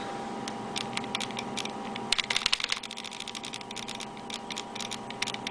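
Dye DM8 electronic paintball marker dry-fired with its eyes off: sharp mechanical clicks from the trigger and firing mechanism, scattered at first, then a fast run of shots about two seconds in, then single clicks again. The marker is set to PSP ramping mode.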